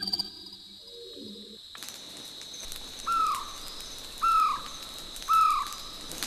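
A bird repeating a short, falling call about once a second over a steady high-pitched buzz and hiss of forest ambience. The sound changes abruptly about two seconds in, from a quieter low-pitched sound to the bird calls.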